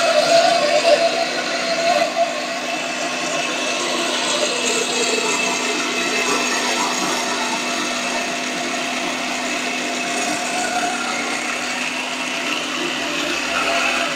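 Yonanas frozen-fruit dessert maker running with a steady motor hum and grinding as frozen fruit is pressed down the chute with the plunger and mashed through the blade.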